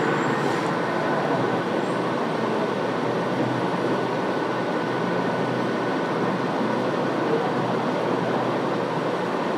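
Steady machine noise: an even hiss and hum with faint, constant high whines, unchanging throughout.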